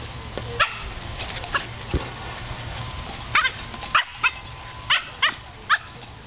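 Dog barking in short, sharp, high-pitched barks at a big ball it can't get into its mouth: frustrated play barking. A couple of barks come in the first two seconds, then a quick run of about seven more.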